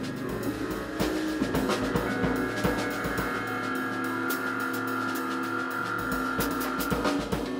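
Live jazz-fusion band playing: a busy drum kit with snare and cymbal hits over electric bass, keyboards and saxophone. One long high note is held through the middle.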